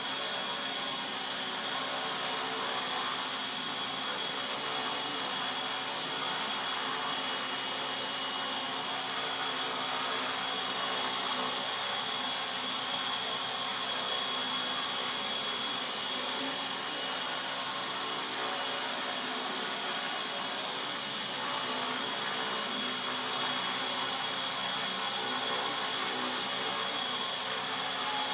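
Align T-REX 450 SE electric RC helicopter hovering: the steady high whine of its motor and drive gears over the whir of the rotor blades, holding an even pitch throughout.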